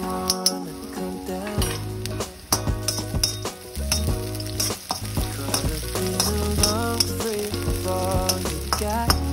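Garlic and green chillies sizzling in hot oil in a steel wok, with a metal skimmer scraping and clinking against the pan at irregular moments. Background music plays along with it, its bass coming in about a second and a half in.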